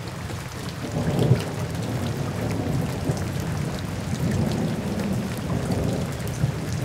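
Rain falling on the lake water, a continuous hiss with fine drop ticks over a steady low rumble; it swells up during the first second.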